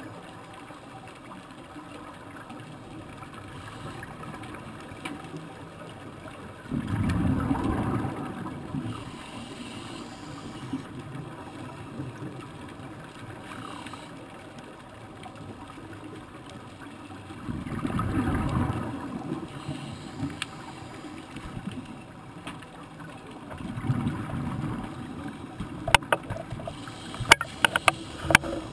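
Scuba regulator exhalation bubbles underwater, coming as three rushing bursts about ten seconds apart over a steady underwater hiss. A few sharp clicks come near the end.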